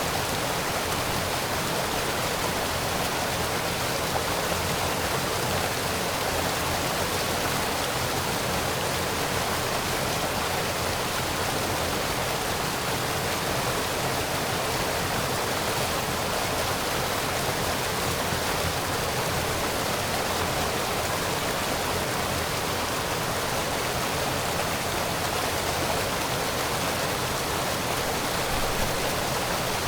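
Small waterfall splashing and rushing steadily.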